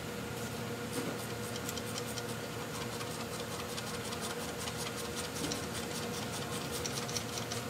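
Light, quick metallic clicks and scrapes of hand tools being worked at a motorcycle's crash bar mounts, over a steady low hum.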